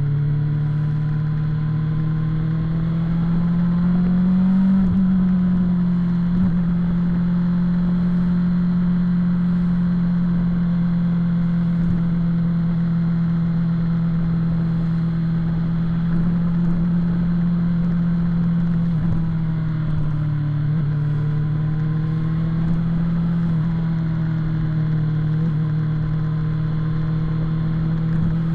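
Engine of a BMW S1000-series sport bike, an inline-four, running steadily at highway speed. The revs rise a few seconds in, and dip then pick up again about two-thirds of the way through.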